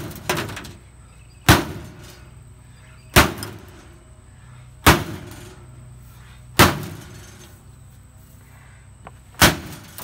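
Axe blade of a Ridge Runner tactical axe/hammer multitool chopping into a metal filing cabinet: five sharp metal-on-metal strikes, mostly about 1.7 seconds apart with a longer pause before the last, each with a short ringing tail. Each blow cuts into the sheet metal.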